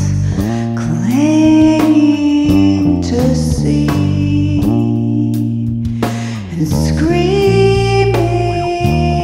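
Music: an electric bass guitar playing a slow line of held low notes, with a higher melody gliding between long notes above it.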